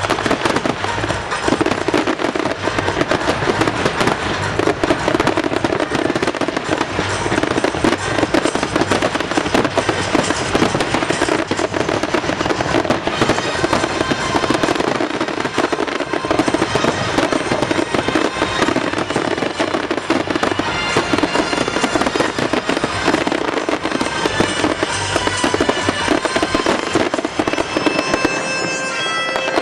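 Fireworks display: a dense, continuous barrage of bursts and crackling, with the show's music soundtrack playing underneath. Steady musical notes come through more clearly near the end.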